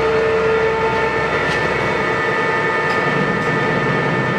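Kingston HD series engine lathe running under power: a steady machine hum and whine made of several held tones. The lowest tone fades about a second in.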